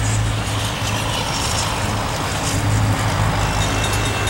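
Steady low rumble of a Norfolk Southern diesel locomotive's engine approaching a grade crossing, mixed with road vehicle noise. A thin steady high tone joins near the end.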